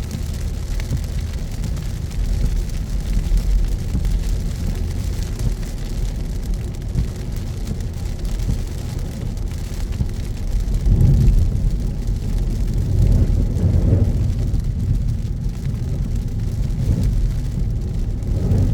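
A car driving on wet city roads in heavy rain: a steady low road rumble with an even hiss of rain and tyre spray over it. The rumble grows louder about eleven seconds in, as if the car speeds up.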